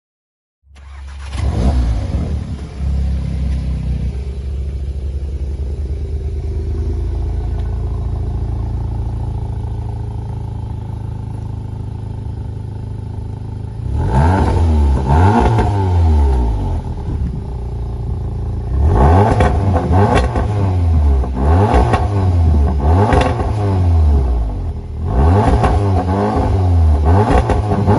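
Volkswagen Golf R Mk7's turbocharged 2.0-litre four-cylinder through a Remus aftermarket exhaust, starting up about a second in with a brief flare, then idling steadily. From about halfway it is blipped repeatedly, short revs rising and falling in groups.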